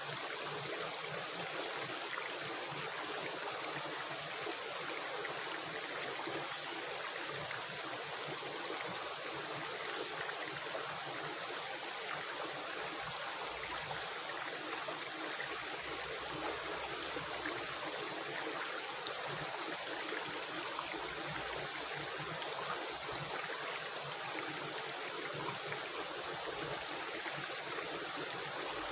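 A river or stream of running water rushing and gurgling steadily, a continuous even rush.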